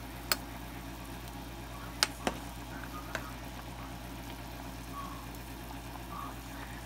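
A saucepan of fish soup boiling on the stove, a steady low bubbling, with four sharp clinks against the pot, the loudest about two seconds in.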